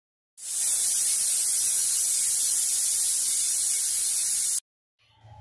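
Pressure cooker venting steam under pressure: a loud, steady hiss that starts abruptly and cuts off abruptly after about four seconds.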